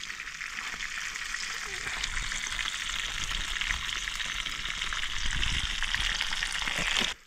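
Fish frying in hot oil: a steady, dense sizzle with fine crackling, which stops suddenly near the end.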